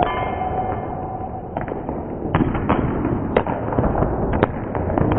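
Volleyball being struck by hand during setting and spiking: several sharp smacks spaced irregularly through the second half, ringing in a gymnasium. A steady tone with overtones is heard in the first second and a half.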